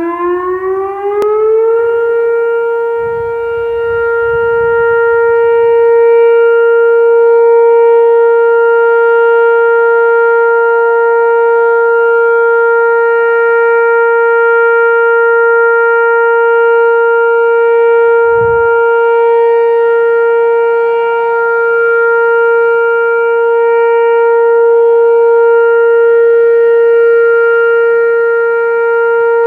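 Whelen WPS-2809 electronic tornado warning siren sounding a test: its tone climbs in pitch over the first couple of seconds, then holds one loud, steady tone.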